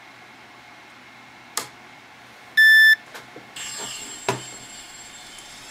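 A single short electronic beep about halfway through, loud and high-pitched with a buzzy edge. A faint click comes before it, and a soft hiss with a thin, steady high tone follows near the end.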